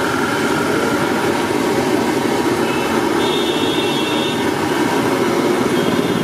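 Samosas deep-frying in a kadai of hot oil: a steady sizzle and bubbling over a continuous low rumble.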